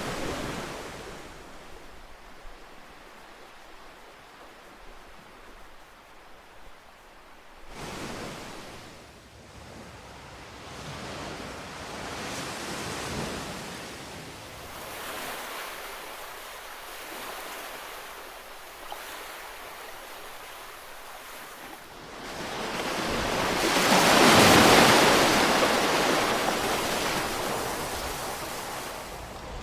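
Ocean waves breaking and washing up on a shore, the surf swelling and fading in slow surges; the largest wave breaks near the end.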